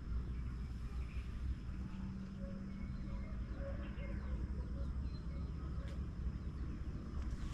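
Birds calling, among them a dove giving a run of soft coos in the middle, over a steady low rumble.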